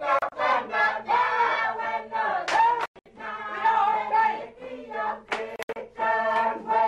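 A group of women singing a traditional island song together, long held notes with short breaks between phrases.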